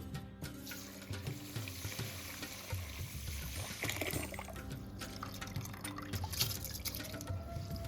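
Water trickling and splashing, with soft background music.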